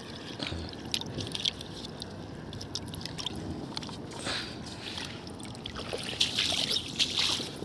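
Water splashing and sloshing in a pan of live fish as they are handled, with a louder stretch of splashing near the end.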